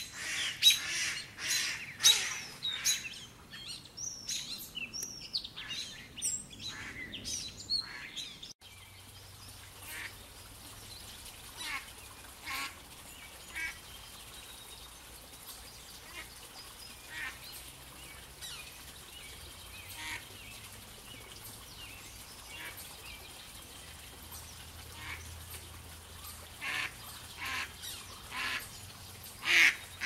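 Bird calls: first a quick run of loud calls with notes sliding up and down, which breaks off suddenly about eight seconds in. Then a mallard hen and her ducklings give scattered short quacks and peeps, with a cluster of louder quacks near the end.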